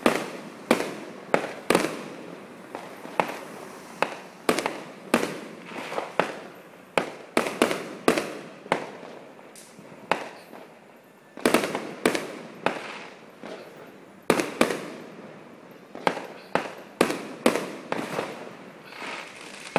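Aerial fireworks going off: a long, irregular run of sharp bangs, often two or three in quick succession, each dying away quickly, with a short lull a little after ten seconds in.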